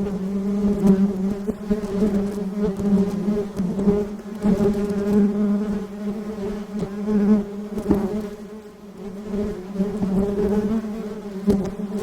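Honeybees buzzing in a steady, continuous hum whose loudness wavers as the bees move, dipping briefly about two-thirds of the way through.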